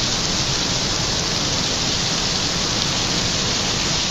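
Water falling and splattering down a partly frozen waterfall among its icicles, a steady rain-like hiss.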